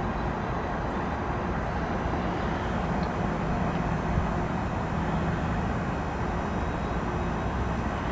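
RunTru heat pump outdoor unit running through a defrost cycle: a steady low compressor hum under a continuous hiss.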